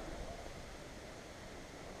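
Faint, steady background hiss with no distinct sounds in it: quiet outdoor ambience on the camera microphone.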